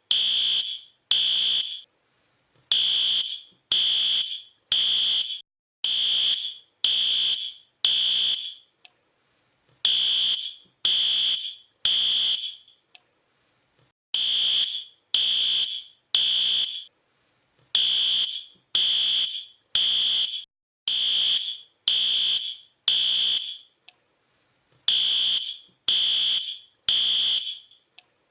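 Fire alarm sounding: a loud, high-pitched beep about once a second, each tone fading slightly before the next, in runs of several beeps with short breaks between.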